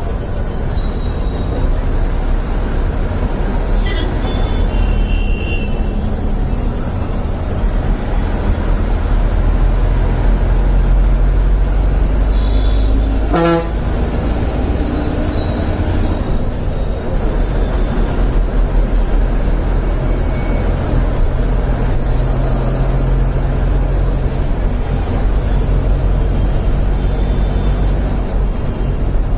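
Inside a city bus moving in traffic: the bus engine's steady low drone, with short vehicle-horn toots, the loudest one about thirteen seconds in.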